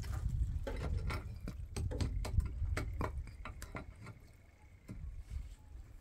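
Gritty scrapes and sharp clicking taps of mud mortar and cement blocks being worked by hand into a wall, thickest in the first three seconds, over a low rumble.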